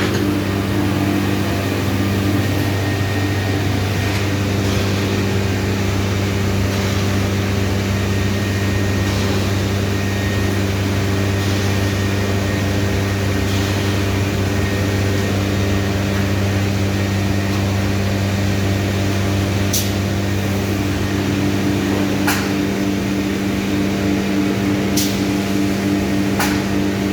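CNC woodworking machine running a minifix cam-lock drilling job: a loud, steady machine hum with a faint high whine, and four sharp clicks in the last several seconds.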